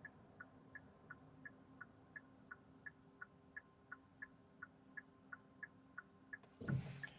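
Car turn-signal indicator clicking steadily in the cabin, about three clicks a second in an alternating tick-tock, over a faint steady hum. The clicking stops shortly before a louder noise near the end.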